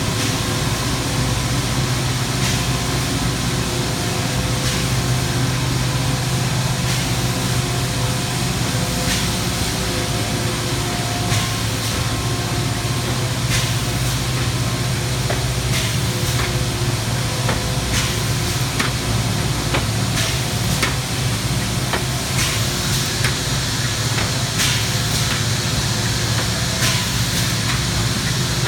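Industrial machinery in a thermoforming plant running: a steady low hum with several faint steady tones over it, broken by sharp clicks every second or few.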